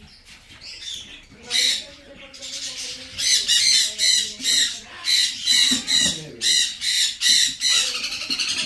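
Young blue-and-gold macaw squawking, a few separate harsh calls at first, then from about three seconds in a steady run of loud squawks, about two a second.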